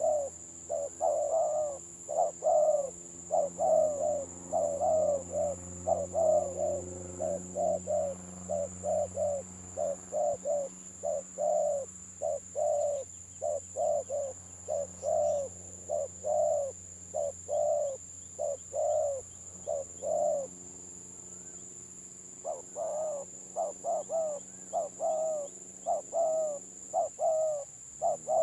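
Spotted doves cooing in quick, stuttering runs of short notes, the 'gagap' style prized in tekukur calling contests. The cooing stops for about two seconds about three-quarters of the way through, then starts again. A steady high-pitched whine runs underneath.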